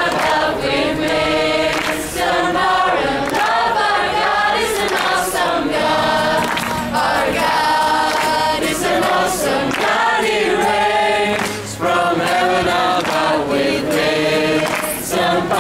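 A large crowd of young men and women singing a Christian worship song together, many voices in chorus.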